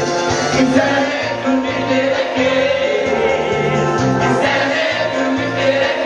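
Music with a steady bass line and several people singing along, a man's voice among them, sung into a corded microphone.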